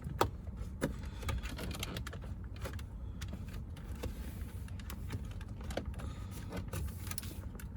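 Scattered sharp clicks and taps of plastic and tools as a tight dashboard trim piece in a BMW X5 is worked at to free its clips, over a steady low hum.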